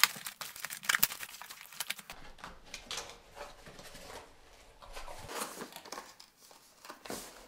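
Cardboard parcel being opened by hand: packing tape cut and torn, cardboard flaps and small cardboard product boxes rustling and scraping, with a scatter of sharp clicks and knocks.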